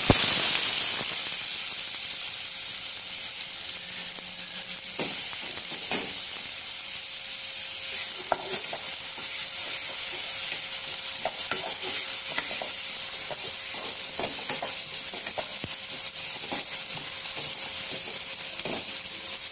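Chopped onion sizzling in hot oil with cumin seeds in a metal kadai, loudest as the onion goes in and then settling to a steady sizzle. From about five seconds in, a spatula scrapes and clicks against the pan as the onion is stirred.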